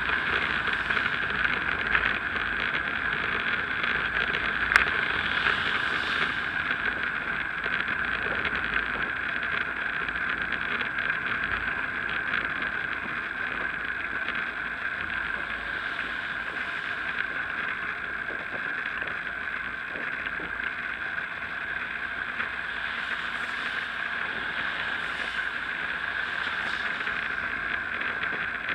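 Steady rushing of wind and tyre noise from a bicycle ridden along damp tarmac, picked up by a bike-mounted action camera. A single sharp click about five seconds in.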